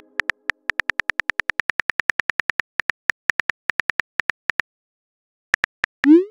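Phone keyboard tapping clicks, about six a second, as a text message is typed, stopping after about four and a half seconds. Two more taps follow, then a short rising swoosh near the end, the message-sent sound.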